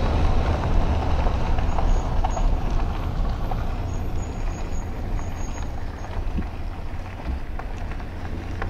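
A vehicle's steady low road rumble and running noise while it drives, slowly fading.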